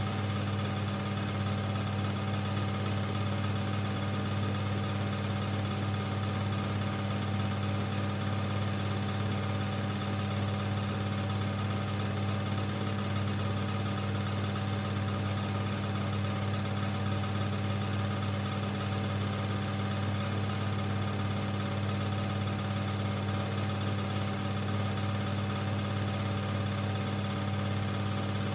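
Super 8 film projector running: a steady, unchanging motor and fan hum.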